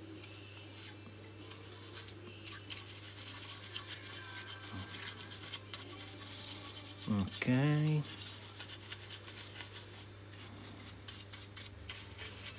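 Bristle paintbrush scrubbing dust off a bare circuit board in quick back-and-forth strokes, a dry rapid scratchy rasping, over a steady low hum.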